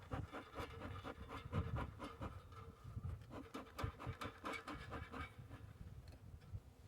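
Faint irregular scratching and clicking as wooden hive frames and parts are handled, easing off after about five seconds.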